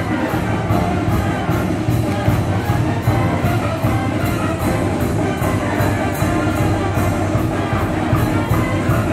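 Village brass band (banda filarmónica) playing, with a steady beat of about two strikes a second.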